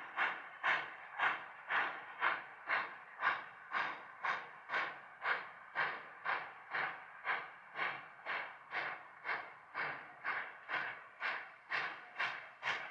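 Virginia & Truckee No. 25, a 4-6-0 steam locomotive, chuffing steadily at about two exhaust beats a second as it pulls its train of coaches.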